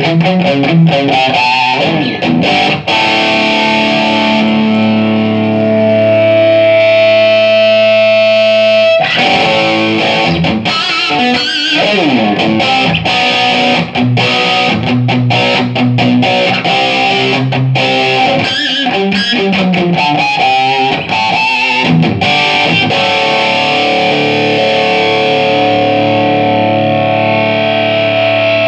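Electric guitar played with distortion through a Laney IRT30 amplifier: a chord held and ringing out for several seconds, then riffs with a string bend. The amp plays on without cutting out, after its effects-loop attenuation switch was replaced to cure the sound dropping out.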